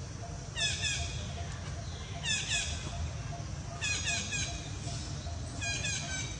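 High-pitched animal chirps come in quick clusters of two to four, one cluster about every second and a half, over a steady low background rumble.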